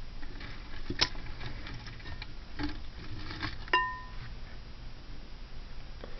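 Costume jewelry clicking and rattling as pieces are picked through. About a second in there is a clink, and near the middle a sharper one that rings briefly, like metal striking glass or another piece.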